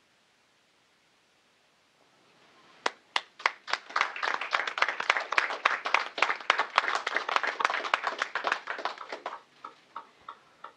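A small group of people clapping. The applause starts about three seconds in, runs dense and fast, then thins to a few last claps near the end.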